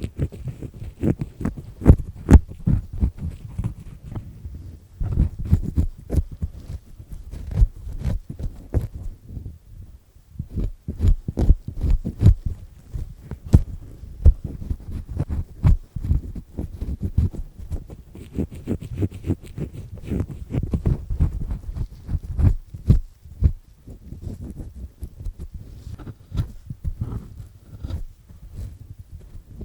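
Black three-disc ear pick scraping and rubbing inside an ear close to the microphone: irregular gritty scratches, clicks and low rubbing thumps as wax is scraped loose.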